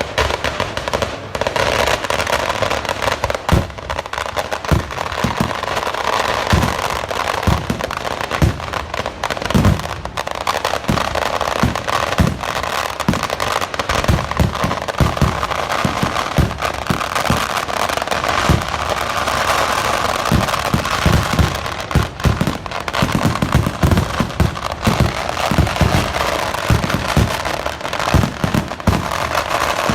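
Festival fireworks barrage (Kerala vedikkettu): a dense, unbroken crackle of firecrackers with many deep booms going off in quick succession.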